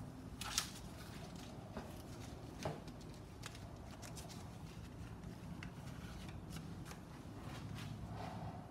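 Faint handling noise: light rustling and a few small clicks and taps over a low steady room hum, with the sharpest click about half a second in and another a little over two seconds later.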